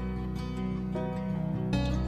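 Background instrumental music: sustained notes with a change of chord near the end.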